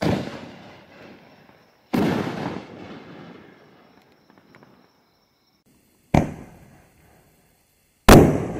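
Two 4-inch consumer mortar shells fired one after the other: each gives a sharp lift bang from the tube and, about two seconds later, the bang of the shell bursting in the air. Four sudden bangs in all, each dying away over about a second, the last the loudest.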